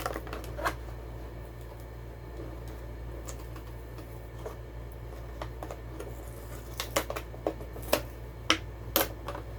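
Die-cast toy car packaging being opened by hand: scattered sharp clicks and crackles of plastic and cardboard, coming thicker in the last few seconds, over a steady low hum.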